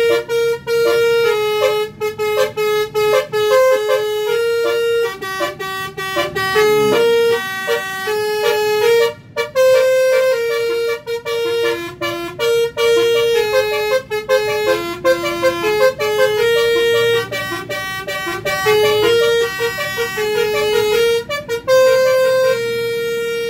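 Bus's multi-tone musical air horn (telolet horn) playing a fast tune of quickly changing notes, with a brief break about nine seconds in.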